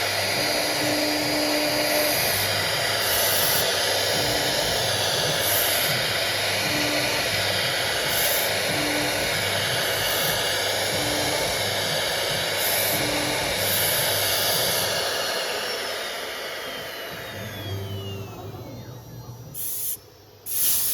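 CIMS1325 CNC router running, with a steady loud spindle and cutting noise and a low motor hum that starts and stops every second or so as the axes move. It winds down in the last few seconds, and two short hisses come near the end.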